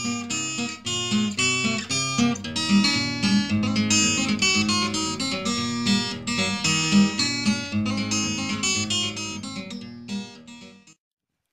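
Background music: fast acoustic guitar picking, cutting off suddenly near the end.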